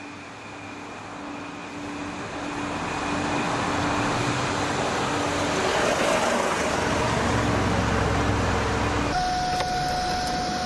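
A Chevrolet car drives up and passes close by, its engine and tyre noise growing steadily louder, with a deep rumble as it goes right over. About nine seconds in the sound cuts to a quieter steady tone.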